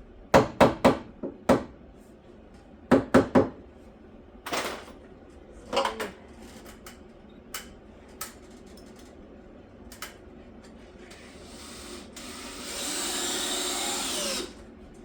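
Quick groups of hammer strikes, about four blows at a time, then a few single blows. Near the end a power drill runs steadily for about a second and a half and stops sharply.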